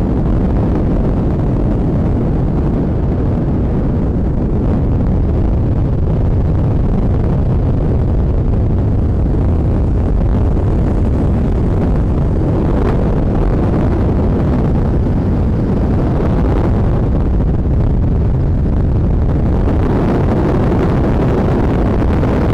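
Loud, steady rumble of a car on the move, with wind buffeting the microphone; it cuts off abruptly at the end.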